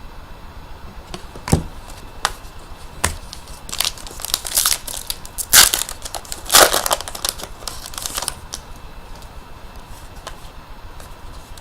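Trading card pack wrapper crinkling and tearing as a pack is opened and the cards are handled. A few sharp clicks come first, then a cluster of short crinkling bursts in the middle.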